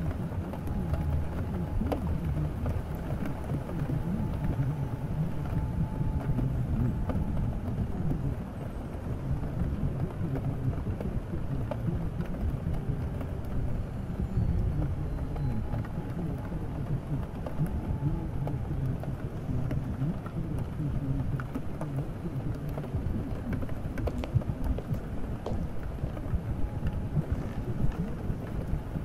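Steady rain ambience, a constant wash of falling rain with scattered small drop ticks over a low, even rumble.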